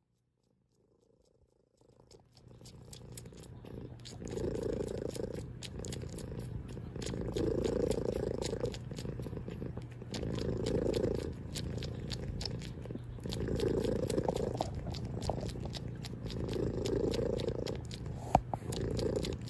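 White cat purring steadily, the purr swelling louder and softer about every three seconds with its breathing. The purr fades in after about two seconds of near silence, and a brief click sounds near the end.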